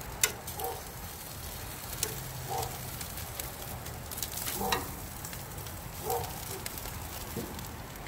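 Whole striped bass and eggplants sizzling on a hot grill grate, a steady hiss with light crackling. A sharp metal click sounds just after the start.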